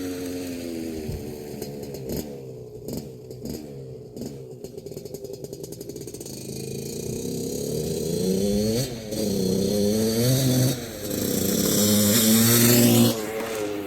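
1981 Suzuki RM125X's two-stroke single-cylinder engine being ridden, its revs rising and falling repeatedly. It runs softer and choppier at low revs for a few seconds, then revs up harder and is loudest shortly before the end, where it drops off suddenly.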